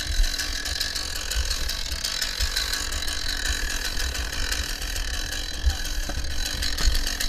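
Fire crackling, a dense run of irregular sharp snaps and pops from burning attic and roof wood, over a steady hiss and a low rumble.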